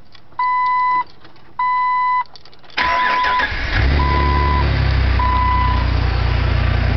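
Dashboard warning chime beeping steadily, then the Jeep's starter cranks about three seconds in and the engine catches a second later, settling into a cold idle with an air sound from the newly fitted aftermarket air intake, which the owner says goes away once the engine warms up.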